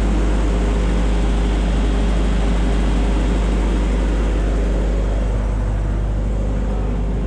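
Large heavy-capacity forklift's engine running steadily with a deep low rumble, easing off slightly about five and a half seconds in.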